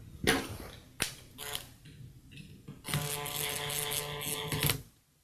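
A few handling knocks and clicks, then about three seconds in a cordless driver runs for about two seconds, driving a screw into the drill's plastic housing, and stops sharply.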